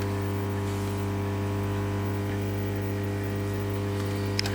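Steady electrical mains hum, a low buzz made of a stack of even tones, with a single faint click near the end.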